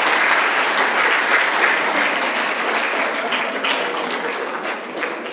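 An audience of students applauding in a large hall, loudest at the start and slowly fading.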